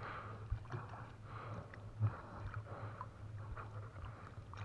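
Shallow river water sloshing and splashing around hands picking fish from a trammel net, in a run of small splashes. A louder thump comes about two seconds in.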